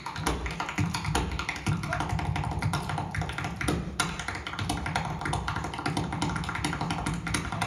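Rapid percussive footwork: dancers' hard shoes striking the stage in a dense, fast run of sharp clicks and stamps.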